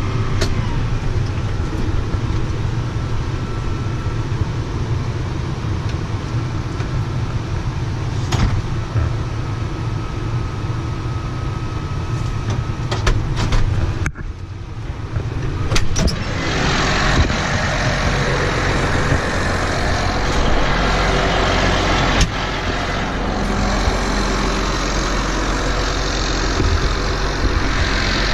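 Combine harvester running while cutting soybeans: a steady low engine drone with a few sharp clicks. About halfway through the sound dips briefly, then a brighter, harsher rushing noise takes over.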